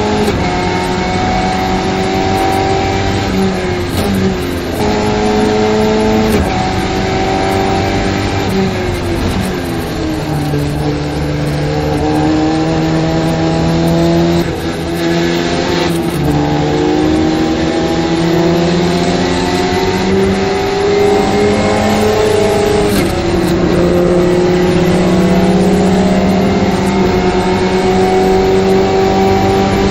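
The 1972 Winkelmann Formula Ford's four-cylinder Ford engine heard onboard at high revs, its pitch climbing steadily as the car pulls through the gears and dropping back at each gear change or lift.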